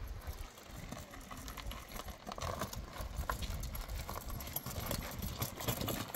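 Irregular clicks and knocks over a low rumble.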